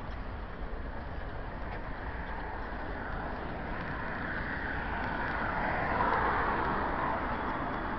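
Road traffic on a city street, one vehicle passing close by, growing louder from about three seconds in, loudest a little past the middle, then easing off.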